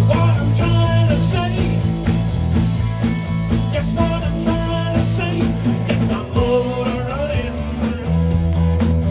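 A rock band playing live: electric guitar over a steady bass line and drums.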